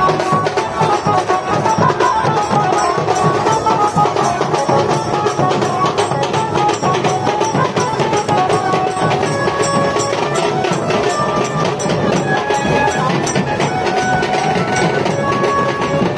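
A band of large barrel drums beaten with sticks in a fast, dense rhythm, with a melody of short held notes running over the drumming.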